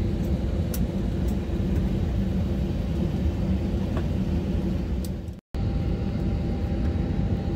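Steady low rumble and hum inside the passenger cabin of an Airbus A320, with a few faint ticks; the sound cuts out for an instant about five and a half seconds in.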